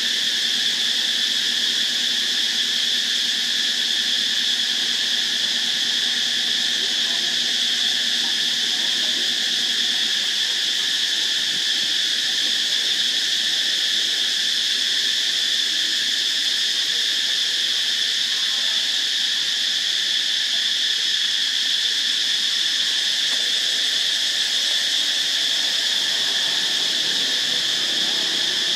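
Insect chorus droning steadily in a continuous high-pitched buzz, unchanging throughout.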